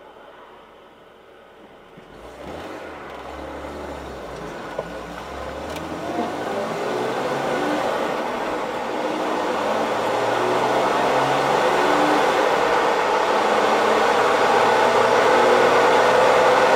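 A BMW E39 Touring's engine and road noise heard from inside the cargo area as the car sets off and gathers speed, growing steadily louder with a rising pitch. Two short light knocks come about five and six seconds in.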